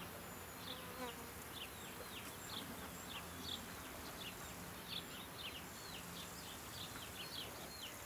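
Faint garden ambience: a low insect buzz that comes and goes, with short high chirps repeating irregularly, a few per second.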